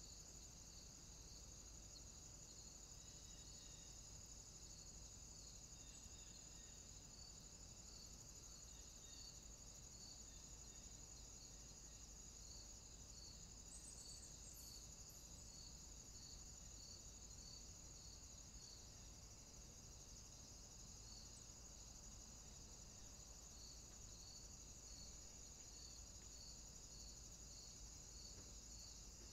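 Near silence: a faint steady high-pitched whine with soft regular pips a little more than once a second.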